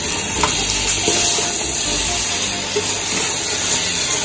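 Seasoned oxtail sizzling as it browns in a metal pot, with a steady hiss of frying while a spatula stirs through the meat. This is the browning stage, before any water goes in.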